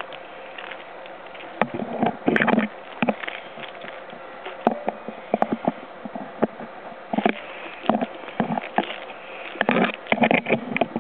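Alfa Romeo 147 T.Spark petrol engine idling steadily, heard at the tailpipe. Louder irregular rustling crackles come in short clusters over it, the loudest around two seconds in and again from about seven seconds to the end.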